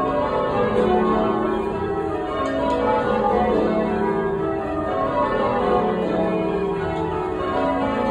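A ring of ten Gillett & Johnston church bells rung full-circle by hand: a steady, unbroken stream of bell strokes of different pitches, heard from the ringing chamber beneath the bells.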